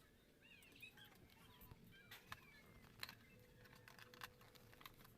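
Near silence, with faint scattered clicks, a faint steady hum and a few faint high chirps.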